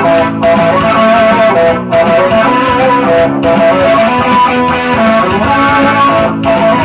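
Electric guitar playing an instrumental rock passage of held notes, with a few brief breaks between phrases.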